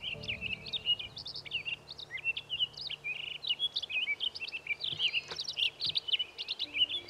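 Small birds chirping and twittering in quick, overlapping high calls, several at once, with no pause.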